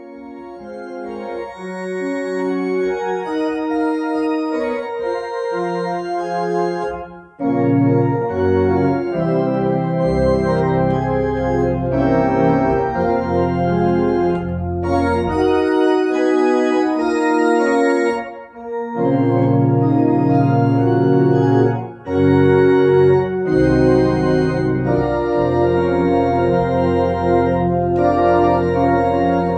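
Two-manual church organ with pedalboard playing slow, sustained chords that start soft and swell. Deep pedal bass joins about seven seconds in, and the music breaks off briefly between phrases.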